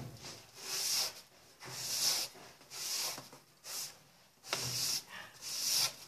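Sponge scrubbing caked mud off the bottom of a washing machine tub: a rasping rub, about one stroke a second.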